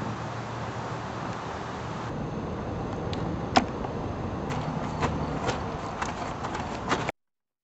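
Steady outdoor background noise with a low hum, then a string of sharp clicks and knocks, the loudest about three and a half seconds in; near the end the sound cuts out to dead silence.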